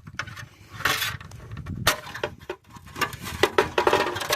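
Plastic clip-on wheel cover being pried off a truck wheel by hand, its retaining clips popping loose in a series of sharp clicks and snaps, closely spaced in the last second and a half.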